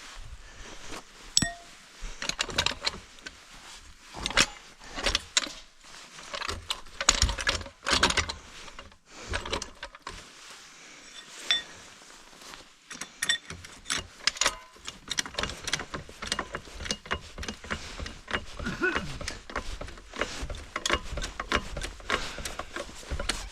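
Metal hand tools and parts clinking and rattling in a dense, irregular run of sharp clicks, as something is being unbolted and taken apart.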